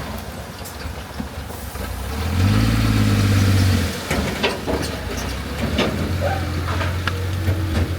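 Heavy earthmoving machine's diesel engine running, loudening for about a second and a half in the middle, with scattered clanks and knocks after it.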